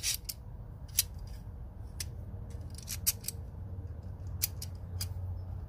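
Knipex Cobra 10-inch water pump pliers being worked open and shut by hand: several sharp metallic clicks at irregular intervals from the jaws and joint.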